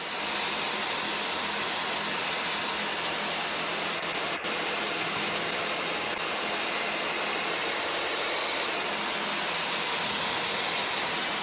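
Steady in-flight cockpit noise of a Czech Sport Aircraft SportCruiser (PS-28) light sport plane, engine and airflow blended into an even hiss, with one faint click about four seconds in.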